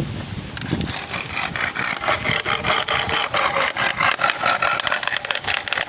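A saw cutting through wood in quick, even strokes, starting about half a second in.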